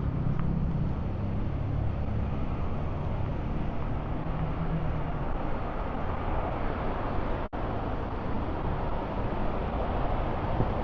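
Street traffic: a vehicle engine running close by for the first five seconds or so, then the broader noise of passing traffic. The audio cuts out for an instant about seven and a half seconds in.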